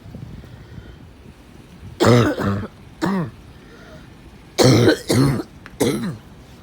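A sick person coughing: two bouts of three harsh coughs, the first starting about two seconds in and the second about four and a half seconds in.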